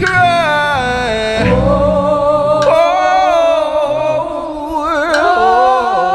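Gospel worship singing with instrumental backing: long held sung notes that slide in pitch and waver with vibrato over steady low accompanying notes.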